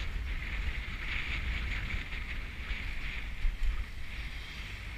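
Wind rumbling over the microphone of a camera riding on a moving bicycle, with a steady hiss of tyre and road noise on asphalt.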